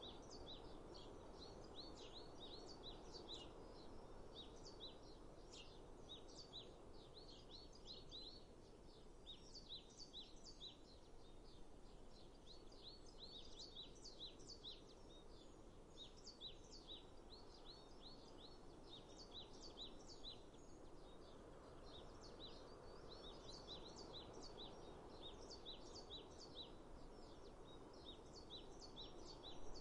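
Faint nature ambience: many small birds chirping in quick clusters of short high calls, with brief lulls, over a soft steady background hush.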